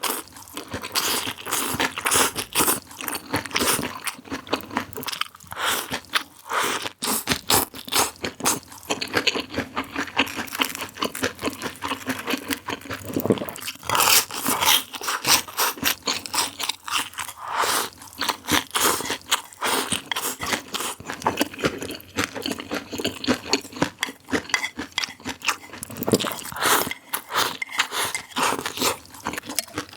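Close-up crunching and chewing of crispy food: many rapid crackly bites in a row, with a few louder crunches along the way.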